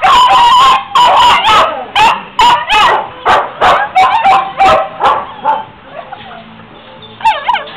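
Dogs in a pound's kennel block barking and yelping, about two high barks a second. The barking dies down after about five seconds, and a quick wavering yelp comes near the end.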